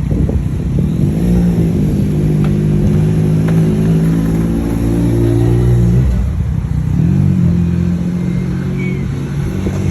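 A motor vehicle engine accelerating: its pitch climbs about a second in and holds, drops around six seconds in, then climbs and holds again.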